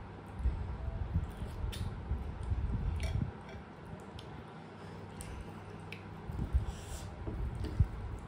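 Close-miked eating of rice and fish curry by hand: wet chewing and squishing in two spells, scattered with small sharp clicks of the mouth and fingers.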